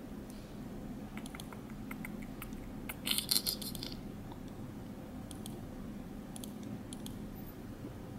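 Faint, scattered clicks of a computer mouse and keyboard, with a short, denser run of clicking about three seconds in, over a low steady hum.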